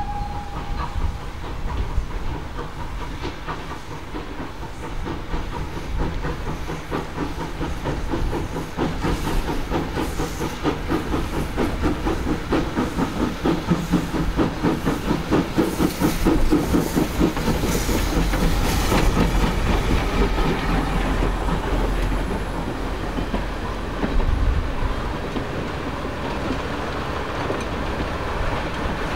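A 1948 0-4-0 saddle-tank steam locomotive working past with its train, its exhaust beating rhythmically and loudest about halfway through as it goes by. The carriages then roll past with wheels clicking over the rail joints.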